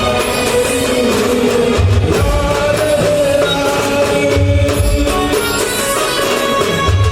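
A band playing raas garba music: sustained melody lines over a deep drum beat, with a heavy bass hit recurring about every two and a half seconds.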